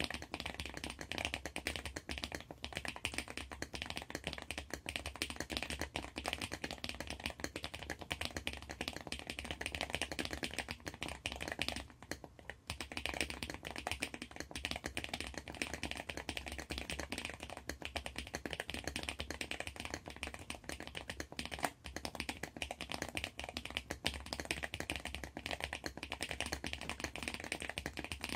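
Fast, continuous typing on a handwired DIY mechanical keyboard built on a cardboard base: a dense stream of keystroke clacks, with a brief lull about twelve seconds in.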